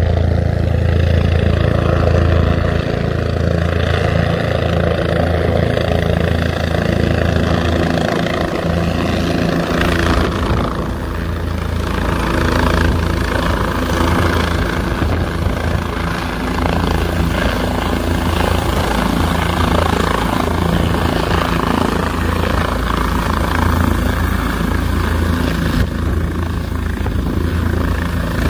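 Helicopter coming in low and landing, its rotor and engine running loud and steady throughout.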